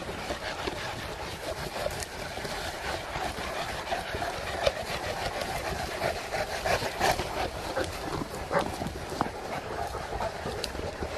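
A large pack of St. Bernard dogs being walked on pavement: many short clicks and scuffs of paws and footsteps over a steady outdoor background.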